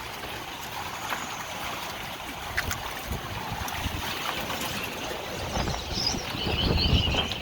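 Wind and water sloshing around the flooded docks and boats, with a few light knocks; the wind buffets the microphone, swelling near the end.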